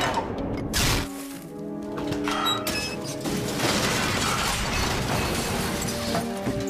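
Film score music over crockery and glassware clattering and toppling on tables: a coffee cup and a glass of orange juice tip over and spill.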